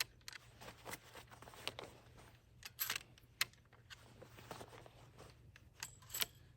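A few faint clicks and handling noises as shotgun shells are pressed out of a Remington 870's tube magazine one at a time.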